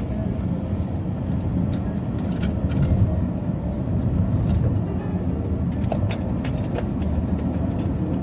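A car driving along a road: a steady low rumble of engine and tyres from the moving vehicle, with a few faint clicks.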